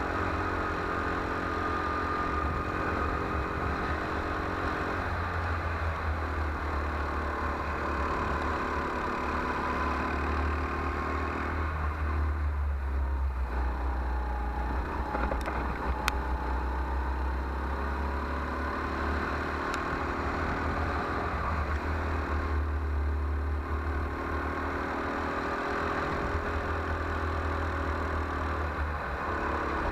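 Go-kart engine running hard on track, seen from onboard, its pitch sagging twice, around twelve and twenty-two seconds in, as the kart slows for corners, then climbing again.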